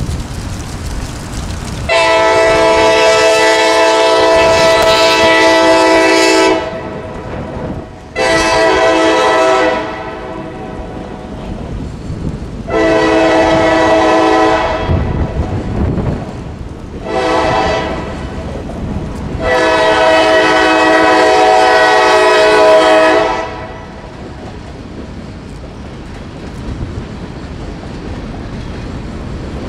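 CSX diesel locomotive's air horn sounding five blasts: long, short, long, short, long, the last the loudest. Between and after the blasts the train's running rumble carries on.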